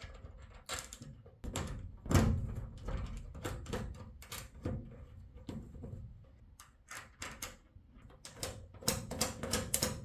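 Small metal hardware clicking and tapping as washers and nuts are fitted onto M6 bolts through an acrylic door panel, with a heavier thunk about two seconds in.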